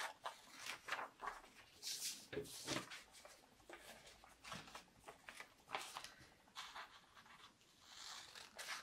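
Scissors cutting through folded origami paper: a series of faint, irregular snips, with soft paper rustling between them.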